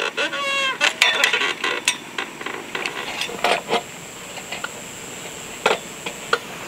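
Scattered sharp metallic clinks and knocks from work on a steel electricity pole and its wire fittings, a handful of separate strikes spread over several seconds, over a faint steady high tone.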